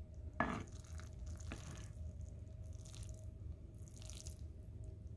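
A spoon clicks once against the pot, then stirs and lifts cooked rice with a few soft, wet squishing scrapes. A low steady hum sits under it.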